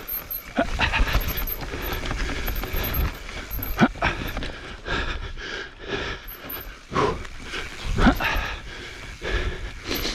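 Evil Wreckoning LB mountain bike riding down a dirt forest trail, its tyres rolling over dirt and roots with a continual rattle of the bike. Two sharper, louder knocks come about 4 and 8 seconds in.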